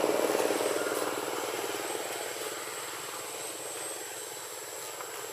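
A motor engine running with a rapid, even pulse, loudest at the start and fading over the first few seconds as it moves away, leaving a quieter steady hum.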